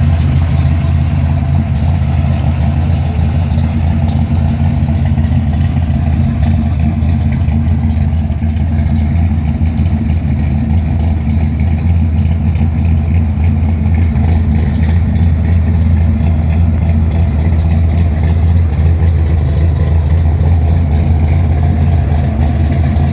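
Chevrolet Nova SS engine idling with a steady, deep, loud note as the car creeps up a loading ramp under light throttle.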